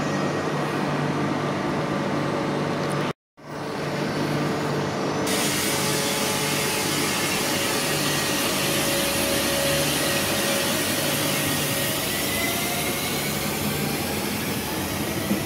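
Renfe Civia electric multiple unit running past along the platform track, its wheels and motors making a steady rumble. Near the end a faint motor whine rises in pitch as the train speeds up. The sound cuts out completely for a moment about three seconds in.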